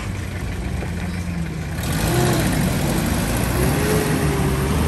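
Pickup truck engine running as it drives through a shallow stream. About two seconds in, the level rises and water starts splashing around the wheels.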